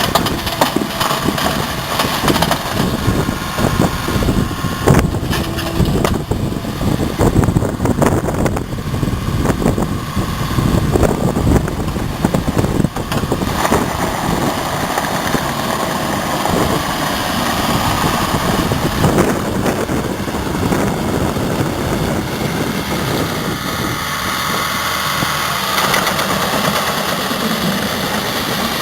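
JCB 8085 ZTS midi excavator with its Isuzu 4LE2X four-cylinder diesel running. Frequent sharp clanks and knocks sound over the engine in the first half, and from about halfway on the engine runs more steadily.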